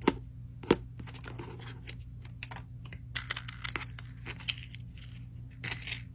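Plastic blister pack of Apple Pencil replacement tips being pressed and worked open, a tip popping free: two sharp clicks in the first second, then bouts of crunchy crackling and clicking.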